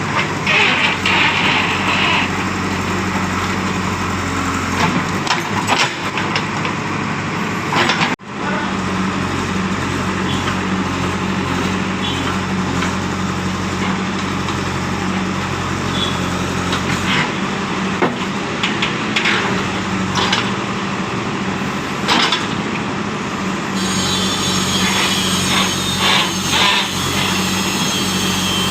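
Backhoe loader's diesel engine running steadily under working load, with scattered clanks and knocks from the digging bucket and arm.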